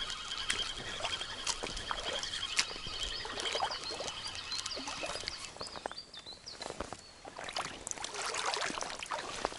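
A hooked fish, likely a roach, being reeled in on a feeder rod and brought to the shallows. There is splashing and dripping water with many small clicks, and the spinning reel gives a steady whir in the first couple of seconds as it is wound.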